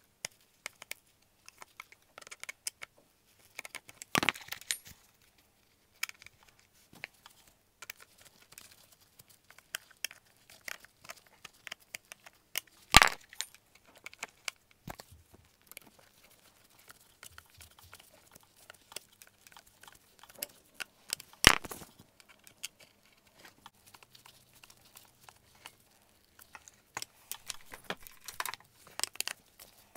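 Scattered clicks, knocks and rustles of hands working a screwdriver in the screws of a plastic lamp base, with two louder knocks, about 13 and 21 seconds in.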